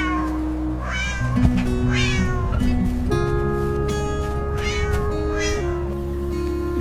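A cat meowing about five times over background music of steady held notes.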